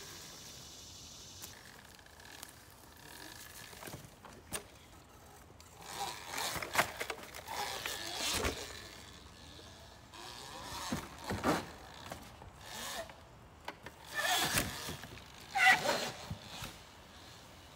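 Footsteps and rustling in dry leaf litter and twigs, in irregular crunchy bursts with a few sharp clicks.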